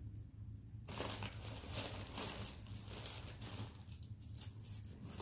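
Crinkling and rustling of a bag being rummaged through, starting about a second in, with a short lull near the end.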